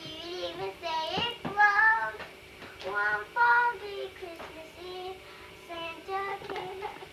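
A young girl singing alone, unaccompanied, in a high child's voice, in short phrases with held notes.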